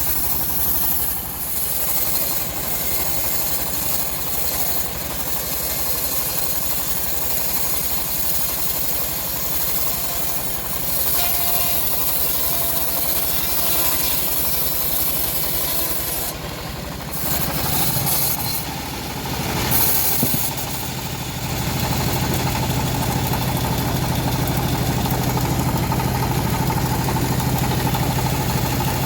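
Engine-driven homemade bandsaw mill running steadily while sawing hard teak logs. Its note changes about two-thirds of the way through, then settles into an even hum.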